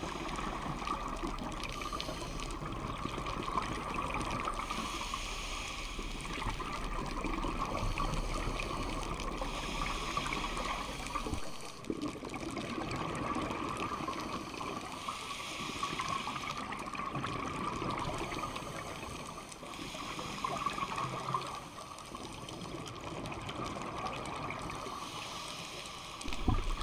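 Underwater sound on a scuba dive: a steady watery hiss with a rush every five seconds or so as a diver breathes through a scuba regulator and exhales bubbles.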